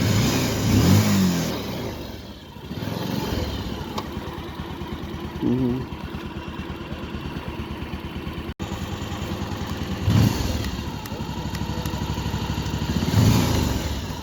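Motorcycle engine running at low speed while riding across a suspension bridge, pulsing steadily, with the throttle opened up a few times.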